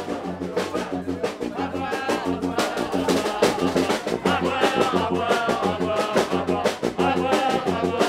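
Lively brass band music with a steady drum beat: horns playing a tune over bass notes and drums.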